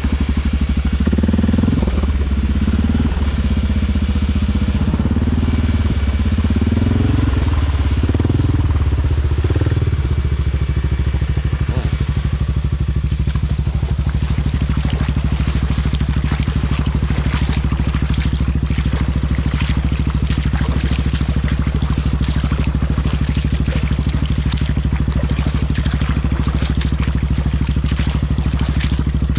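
ATV engine running under throttle, its pitch rising and falling over the first ten seconds, then holding steady. Crackling noise rides over the engine through the second half.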